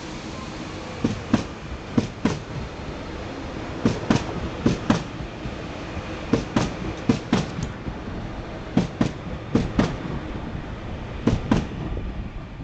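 TransPennine Express Class 397 Nova 2 multiple unit pulling out, its wheels clicking over rail joints in quick pairs as each bogie passes, over a steady rolling rumble.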